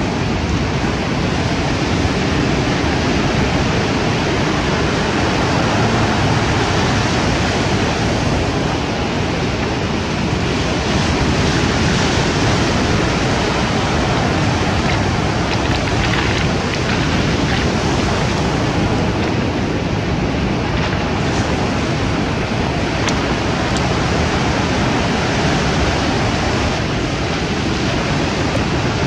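Sea surf breaking steadily onto a cobble beach, a continuous wash of waves, with wind on the microphone.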